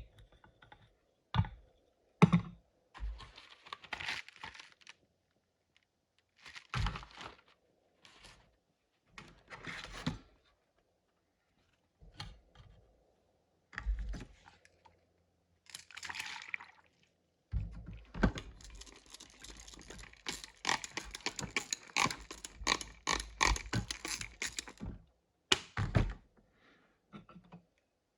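Wet sanding of a cast fiberglass part with a 120-grit drywall sanding screen and water. First come separate scraping strokes with a few knocks between them, then a long run of fast back-and-forth rasping.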